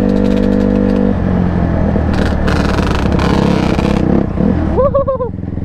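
A Yamaha Banshee quad's two-stroke twin engine held at a steady note for about a second during a wheelie, then a rougher, uneven engine sound as the quad comes down and rides off.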